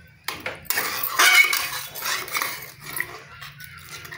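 Steel spatula scraping and knocking against the bottom of a metal kadai while stirring potato halwa in milk: a couple of clicks at the start, then continuous scraping strokes. These are loudest a little over a second in and ease off near the end.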